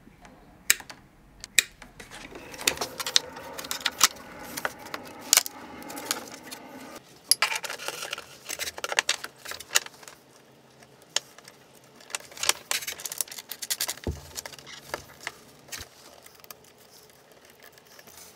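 Hands working with cable and small hand tools: irregular sharp clicks and light metallic clatter, with a stretch of denser rustling of wire a couple of seconds in and a single low knock near the end.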